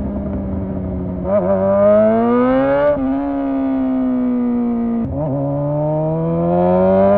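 Honda CBR 600 inline-four engine running with no exhaust fitted, its open-pipe note rising twice as the revs climb under acceleration, with short drops in pitch between the climbs.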